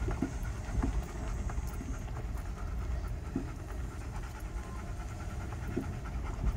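Car rolling slowly along a gravel road, heard from inside the cabin: a steady low rumble with faint scattered ticks of gravel under the tyres.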